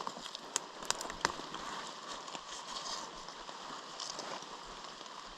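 A hiker's footsteps moving through wet forest undergrowth, with a few sharp clicks in the first second and a half, over a steady hiss of rain.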